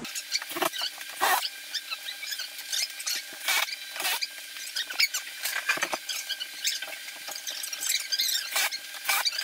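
Fast-forwarded audio of people hanging a kitchen cabinet: their voices and tool noises sped up into a high squeaky chatter with many sharp clicks.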